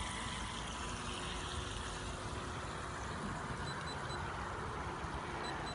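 Home-built twin-jet RC boat running on the water: a steady whirring hiss from its motors and water jets.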